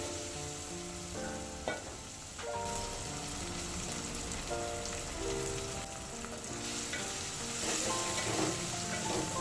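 Food sizzling as it fries in hot oil in a pan, with a few clinks of stirring, under background music.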